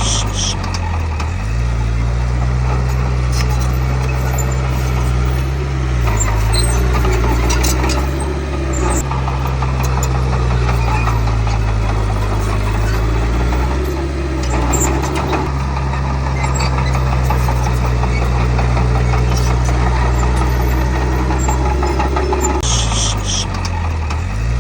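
Heavy diesel construction machine working under load: a deep engine note that sags and picks up again several times, with steady mechanical clatter over it and short hissing bursts near the start and near the end.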